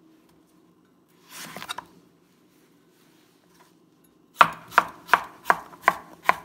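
A cleaver chopping green zucchini on a plastic cutting board: a softer brief noise a little over a second in, then six sharp chops in quick succession, a little under three a second, starting about four seconds in.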